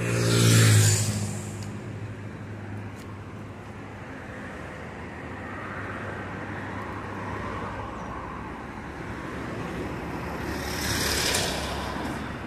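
Diesel coach engine running steadily as a bus pulls out, with a loud burst of air hiss right at the start and another short hiss near the end.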